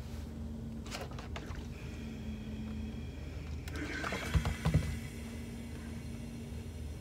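Clothes iron picked up and pressed onto fabric on a wool pressing mat: a brief rustle and two dull thumps about four and a half seconds in. Light clicks of fabric being handled come about a second in.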